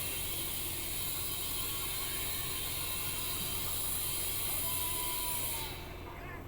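Refrigerant gas hissing steadily through the charging hose and valve of a Daikin Multi S air conditioner, over a constant low hum. The hiss cuts off suddenly near the end as the valve is shut.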